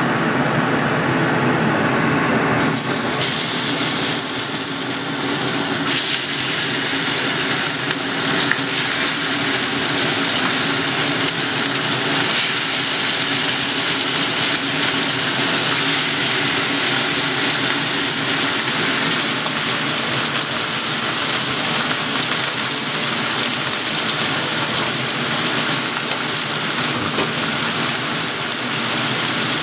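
Marinated meat sizzling loudly and steadily as it fries in a smoking-hot wok. The sizzle brightens sharply about two and a half seconds in, as the meat goes into the pan.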